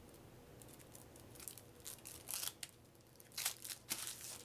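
Crinkling and rustling of card-game packaging and paper being handled, in two bursts of a second or so each, as an Uno card deck is taken out.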